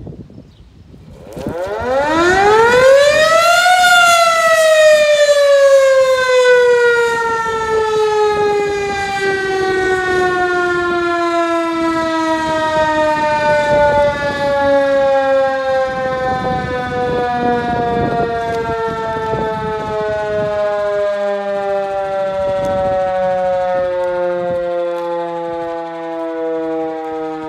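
Outdoor warning siren sounding a very short blast. About a second and a half in it winds up quickly to a high wail. It then slowly winds down, its pitch falling steadily, and is still sounding, lower, at the end.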